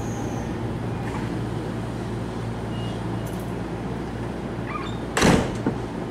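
Tokyo Metro 10000-series train standing at the platform with a steady low hum while its doors close, with a single loud door thud about five seconds in.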